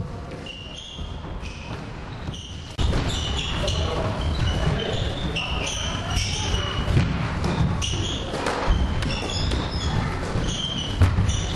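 Football play in a squash court: the ball thudding off the floor and walls and feet pounding the wooden floor, echoing in the hall. The action gets sharply louder about three seconds in.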